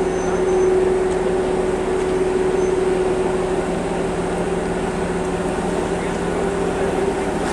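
Steady hum of idling DSB IC3 diesel multiple units as one trainset creeps up to another for coupling, with a constant mid-pitched tone running through it.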